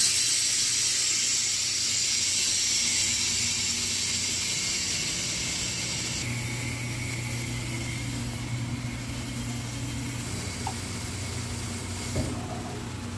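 Parts washer running with a transmission case inside: a steady hiss of spraying and churning water over a steady motor hum. The hiss drops about six seconds in, and there is a brief knock near the end.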